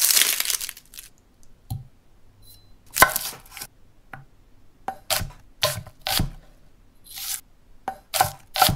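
Kitchen knife chopping on a wooden cutting board: a row of sharp, separate chops about a second apart. It opens with a short crackling, tearing sound.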